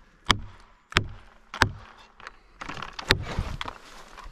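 Axe head knocking a plastic felling wedge into a bucking cut in a log: three sharp strikes about two-thirds of a second apart, then a fourth about three seconds in, with some rustling between them.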